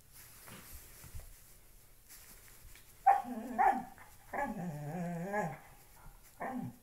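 A black-and-tan dog makes play vocalizations while mouthing and tugging at a shoe on a person's foot. There are two short pitched grumbles about three seconds in, then a longer one that wavers up and down in pitch, and a short one near the end.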